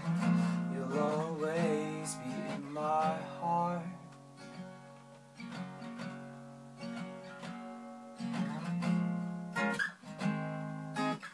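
Acoustic guitar strummed in chords, with a wordless vocal line over roughly the first four seconds.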